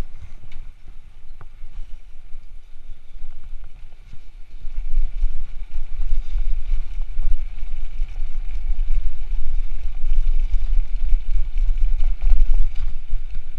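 Wind buffeting the microphone of a handlebar-mounted action camera on a moving bicycle, a low rumble mixed with the tyres rolling over paving stones; it grows louder about five seconds in.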